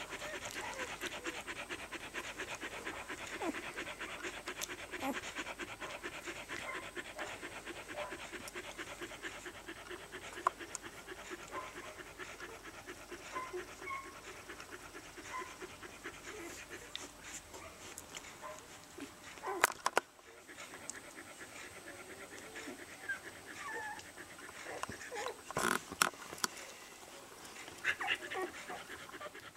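Rough collie mother panting rapidly while her one-week-old puppies nurse, with small squeaks from the puppies. The panting eases about two-thirds of the way through, and two sharp knocks come in the second half.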